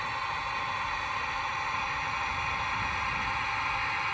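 Factory-fitted DCC sound of a Bachmann Class 66 model locomotive: the diesel engine sound running steadily through the model's small speaker as the train rolls along.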